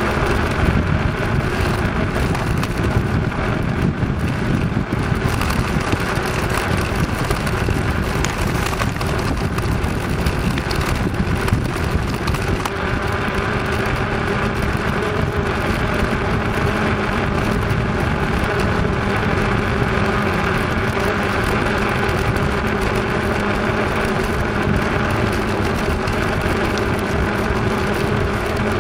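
Bicycle tyres rolling over a concrete slab path: a steady rolling noise with a faint even hum in it.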